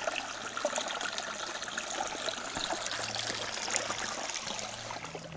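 Mountain stream running over rocks: a steady rush and trickle of flowing water.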